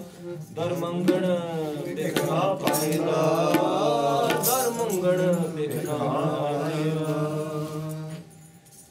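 Sikh kirtan: a man singing hymn verses over a harmonium drone, with tabla strokes. The singing falls away near the end.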